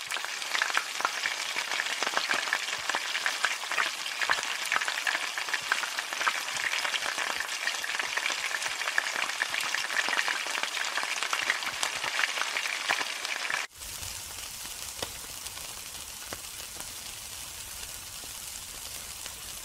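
Food sizzling and crackling as it fries in hot oil in a wok. About fourteen seconds in, it cuts abruptly to a quieter sizzle with a low rumble underneath, from meat skewers grilling over a charcoal grill.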